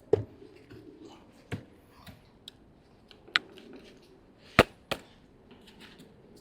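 A handful of separate sharp clicks and knocks, the loudest about four and a half seconds in and quickly followed by another. No motor is running.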